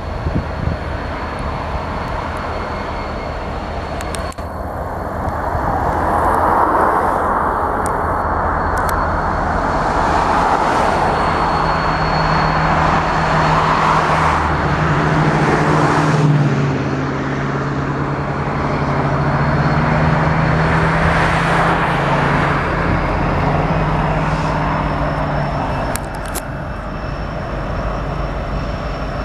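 Freight train of loaded garbage-container flatcars rolling past on the rails, a continuous rumble of wheels and cars. A steady low engine drone runs through the middle.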